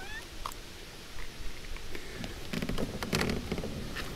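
Metal pliers clicking and scraping against the shell of a freshwater mussel clamped shut on a fishing jig, as they try to pry it open. The clicks cluster in the second half, and a short rising chirp sounds right at the start.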